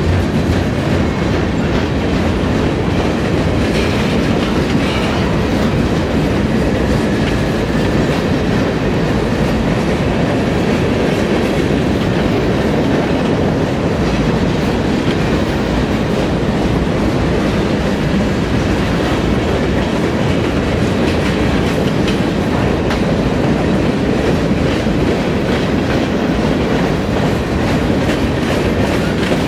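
Freight train cars, centerbeam lumber flatcars and gondolas, rolling steadily past close by: a continuous rumble with the wheels clicking over rail joints.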